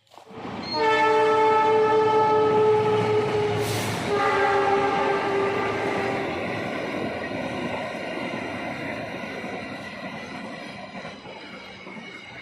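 A loud horn sounding over a low rumble, starting suddenly about half a second in; its pitch drops about four seconds in, then it slowly fades.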